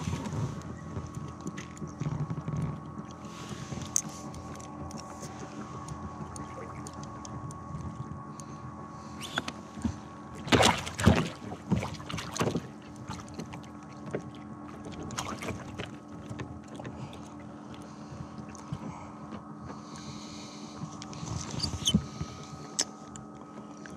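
Fishing kayak on the water: a low steady hum with a few faint held tones, and a cluster of sharp knocks and clatter from gear against the hull about halfway through.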